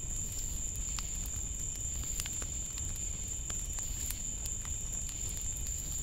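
Night insects calling in a chorus that blends into one steady, high-pitched drone, over a low rumble, with scattered short ticks.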